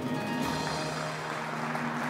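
Game-show music sting for a correct answer, sounding with the studio audience's applause.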